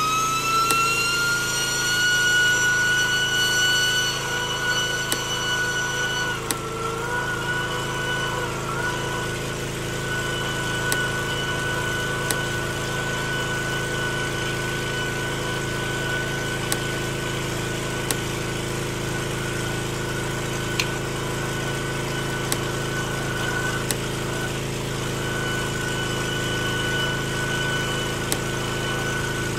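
Pressure washer running the sewer jetter, its motor and pump reaching a steady high whine within the first second. The pitch wavers briefly about six seconds in, and light ticks sound every second or two.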